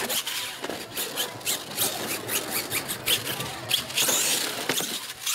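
Radio-controlled monster truck running on loose gravel: tyres crunching and scattering stones, with a hiss and many quick knocks and clatters.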